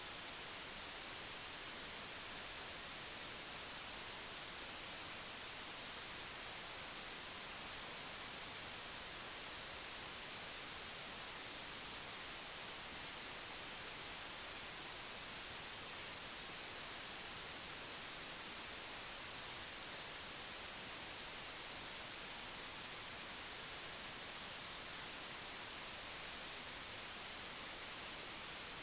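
Steady hiss of static, brighter in the high end and unchanging throughout, with no other sound standing out.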